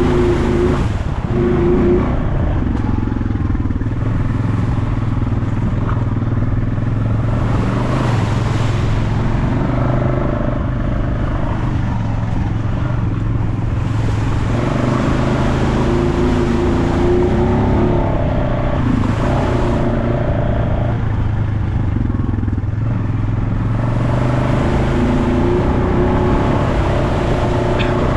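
Engine of an off-road vehicle running continuously on a trail ride, its pitch shifting up and down as the throttle changes, with several stretches of rushing noise.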